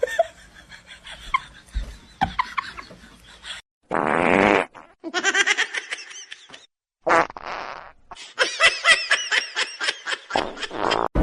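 Short, buzzy fart-like blasts, about three of them, alternating with bursts of human laughter.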